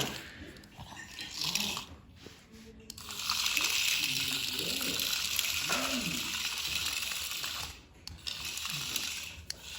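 Remote-control toy snake's motor and gears whirring as it moves. The steady whir starts about three seconds in, breaks off briefly near the end, then runs again.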